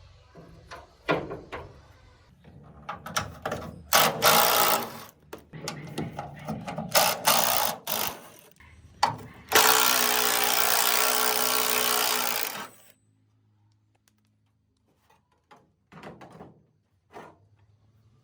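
Power tool running in several short bursts, then in one longer steady run of about three seconds that cuts off sharply, followed by a few faint knocks from handling.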